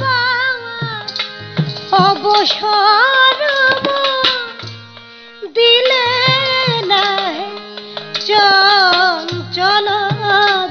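A woman singing a Baul folk song, her voice bending through the melody over the steady held chords of a harmonium and the low strokes of a barrel-shaped hand drum. The voice drops out briefly about halfway through, then comes back in.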